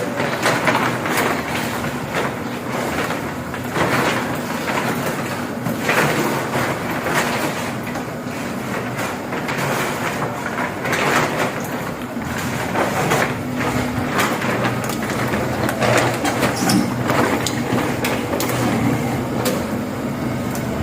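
A motor hums steadily under an irregular hissing rush that swells and fades every second or two, as water spray on an air conditioner's outdoor unit during cleaning.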